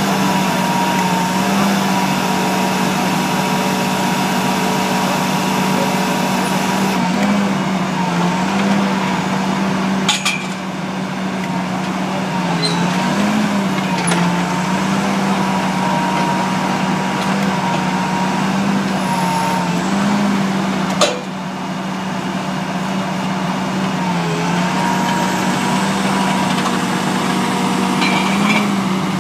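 Engine of a Rotomax XL GTCi compact drilling rig running steadily while drill pipe is pulled from the hole, its pitch dipping briefly every few seconds. Two sharp knocks come about ten and twenty-one seconds in.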